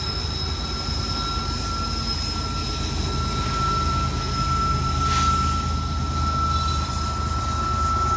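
Heavy freight train rolling past, a low steady rumble with a continuous high-pitched steel wheel squeal from the wheels grinding on the rail, and a brief hiss about five seconds in.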